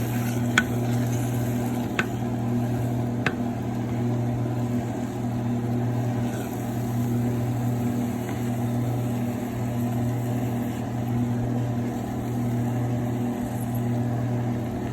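A steady low mechanical hum, with three short sharp clicks in the first few seconds.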